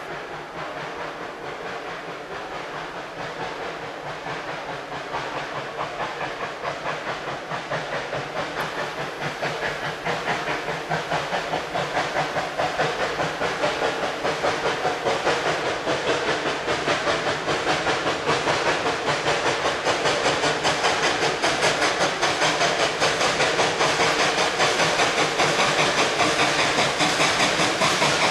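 Steam locomotive No. 190, a USATC 2-8-2, working steadily with quick, even exhaust chuffs and hiss, growing louder as it approaches.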